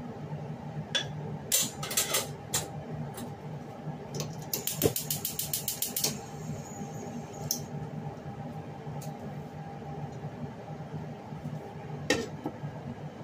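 Light clinks of a bowl against a wok as beaten egg is poured in, then a rapid even run of clicks, about nine a second for a second and a half, from a gas stove's igniter as a burner knob is turned. Near the end a glass pot lid clatters onto the wok, over a steady low hum.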